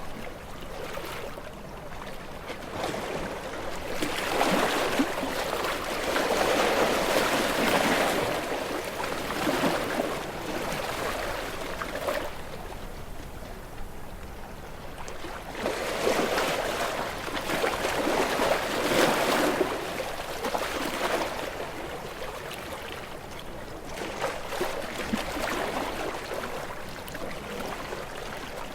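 Ocean waves breaking and washing over rocks, the surf swelling and falling back in slow surges: two larger waves a few seconds in and midway through, with quieter wash and trickling between.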